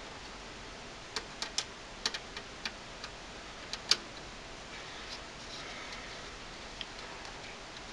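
Screwdriver and mounting screw clicking against the sheet-metal drive cage of a computer case while a hard drive is screwed in: about ten sharp, irregular metal clicks in the first half, the loudest near the middle, then only faint handling sounds.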